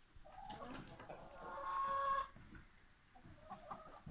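Chickens calling: a short call early on, then one drawn-out call lasting about a second, which grows louder before it stops, and a few softer short calls near the end.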